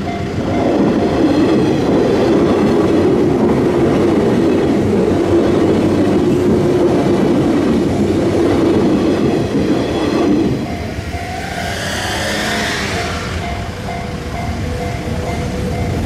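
A passenger train runs across a level crossing for about ten seconds, with a loud rumble of wheels on rails. Before it arrives and after it clears, the Japanese level-crossing alarm rings steadily, and a brief shrill sound rises and falls about twelve seconds in.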